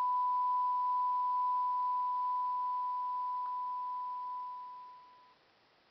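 A single steady electronic tone, pure and unwavering like a test tone or a long beep, held for about five seconds and then fading out.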